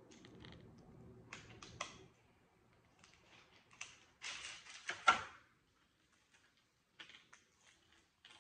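Scattered clicks, taps and rustling from hands handling gingerbread pieces, a plastic icing bag and plastic wrappers on a tabletop. The loudest part is a rustle about four to five seconds in.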